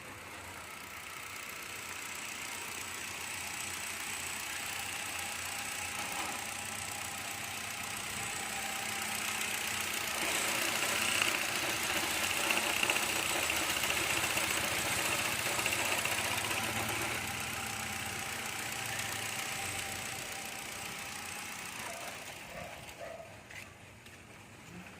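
A motor vehicle's engine running: it grows steadily louder to a peak about halfway through, then fades away.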